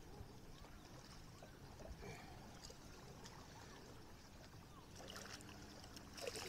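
Faint lapping of lake water against a boat, under a low rumble on the microphone, with a brief louder rush of noise near the end.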